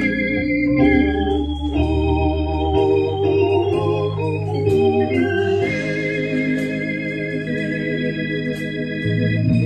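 Organ playing slow sustained chords with a wavering vibrato, the chords changing every second or two over held bass notes.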